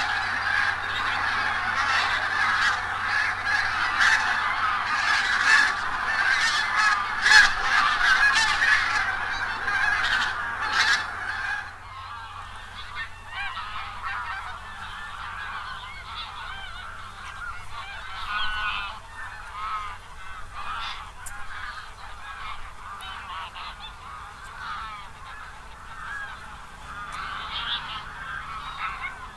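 A flock of wild geese calling, a dense chorus of overlapping honks. About twelve seconds in it drops suddenly to quieter, scattered calls.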